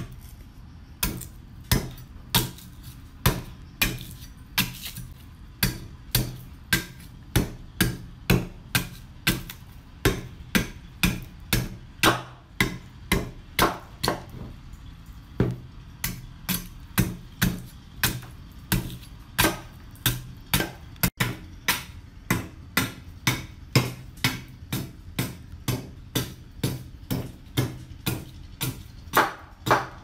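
A broad-bladed chopping knife striking and hewing the edge of a wooden board held upright on a bench, splitting off chips. Sharp chops about two a second, with a short pause a little before the middle.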